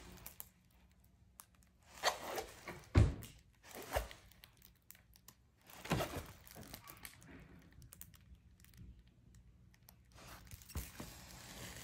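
Crinkling and rustling as a diamond-painting canvas is handled and searched over, with a few knocks; the loudest is a sharp thump about three seconds in.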